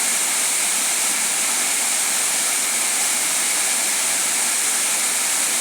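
Waterfall about 30 metres high, its water falling hard into the pool below: a steady, even rush.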